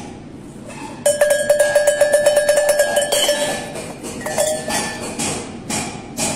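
Sheet-metal sheep bell shaken by hand, its clapper striking in quick succession over a steady ringing tone, from about a second in for a couple of seconds. A shorter ring follows, then some clattering handling noise near the end.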